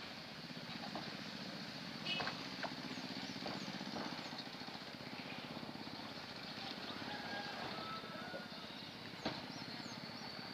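A small engine running steadily nearby, with a couple of sharp clicks.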